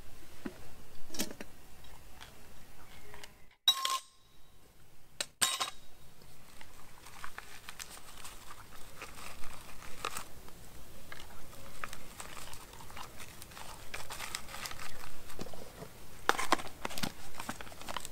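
Spoons clinking against camp mugs and metal cookware, mixed with the rustle and crinkle of food packaging, in small scattered clicks and scrapes. There are a couple of sharper clinks around four and five seconds in.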